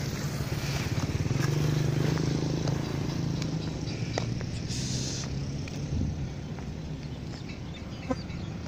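A motor engine running with a low steady drone that grows louder a second or two in and then slowly fades, with a few light knocks.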